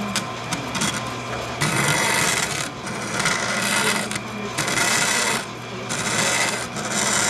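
Bandsaw cutting thin aluminum sheet. The rasping hiss of the blade in the metal comes and goes in stretches of about a second as the sheet is pushed and turned, over the saw's steady low hum.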